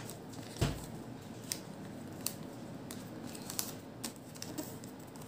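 Hands folding and creasing a sheet of origami paper against a tabletop: faint paper crackles and small ticks, with one louder thump about half a second in.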